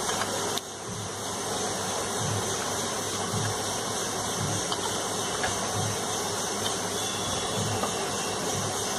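A steady hiss of background noise, dipping slightly about half a second in.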